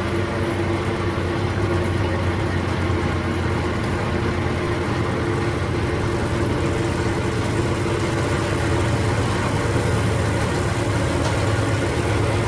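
Diesel engine of a Vermeer BC1000XL wood chipper running steadily, with an even drone and no changes in speed.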